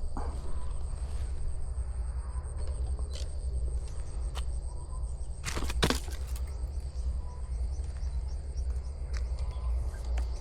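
Insects chirring steadily over a low rumble. There are a few sharp clicks, then a louder double crack about halfway through.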